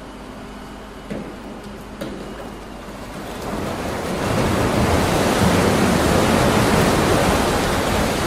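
Quarry rock crusher running, with two sharp knocks about a second apart, then a dense grinding rush that swells up about three and a half seconds in and stays loud.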